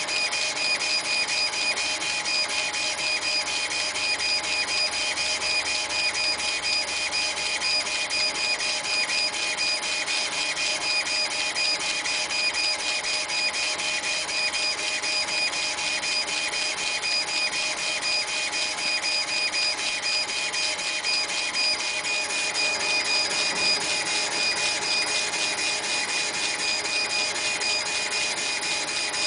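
CNC laser engraver with a wheel-type rotary attachment running, its stepper motors giving a steady high whine over a fast, even mechanical chatter.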